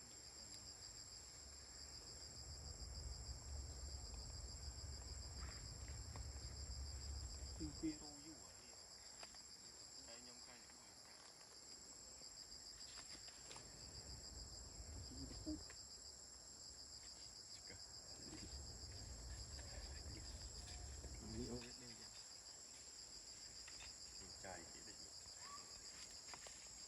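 Insects chirring steadily in a high, fast-pulsing drone, with a low rumble that comes and goes and a few faint short sounds.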